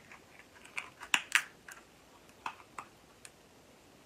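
Cooked king crab leg shell cracking and snapping in the hands: scattered sharp crackles, the loudest about a second in and right at the end.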